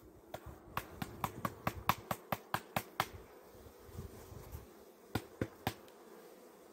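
A quick run of sharp taps on a mini plus hive box, about five a second for two seconds, then three more near the end, over the steady hum of honeybees.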